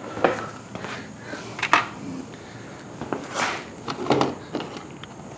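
Objects being handled and rummaged through: a scattering of short knocks, clicks and scrapes over a steady background noise.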